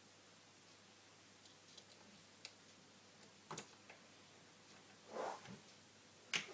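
Small clicks and taps of a phone and its parts being handled on a work surface: a few faint ticks, a soft rustle about five seconds in, and a sharper click near the end.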